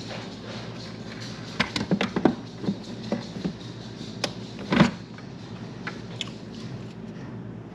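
Household handling noises: a scatter of short clicks and knocks, with one louder thump a little under five seconds in, like doors or things being set down in a small room.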